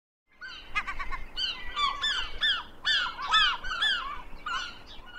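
Birds calling: many short calls that rise and fall in pitch, overlapping one another. They start just after the opening and thin out toward the end.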